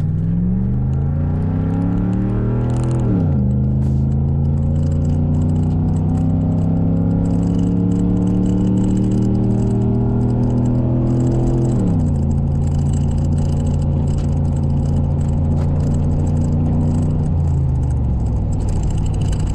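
1999 Chevrolet Blazer's 5.7-litre V8 through a 3-inch Carven TR-series performance muffler, heard inside the cabin under full throttle in a 0–60 run. The engine climbs in pitch, drops at an upshift about three seconds in, climbs slowly again to a second upshift about twelve seconds in, then holds steady before dropping once more near the end.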